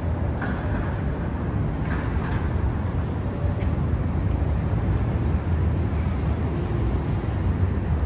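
City street ambience: a steady low rumble of downtown traffic, with no single event standing out.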